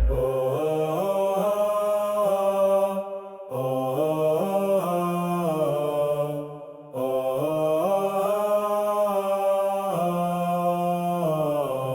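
Wordless deep male chant in long held notes over a low steady drone, the phrases stepping up and down in pitch, with two short breaks for breath. No drums are heard.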